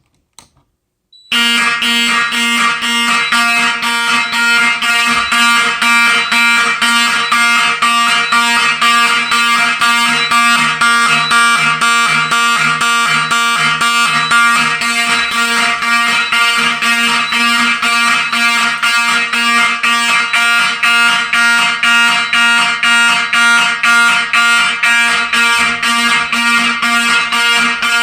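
Wheelock 3424-WS fire alarm horn sounding in march time, with rapid on-off pulses about two a second. This is the Simplex 4004 panel's march-time coding signalling an alarm from the activated smoke detector. It comes on about a second in, after a brief silence.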